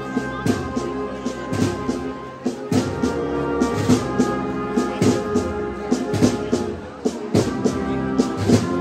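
Brass band with drums playing a processional march: sustained brass chords over regular drum beats.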